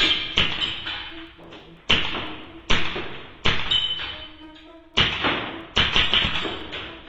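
Swiss Arms Beretta 92 replica air pistol firing about seven sharp shots at uneven intervals, each with a short decaying tail, over background music.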